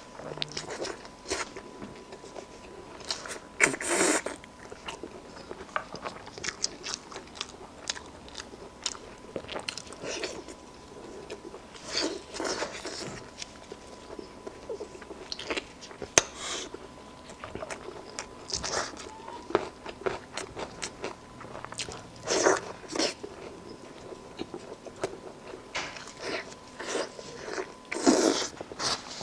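Close-miked eating: biting and chewing braised lamb leg meat off the bone, with irregular wet mouth clicks and smacks and a few louder bites.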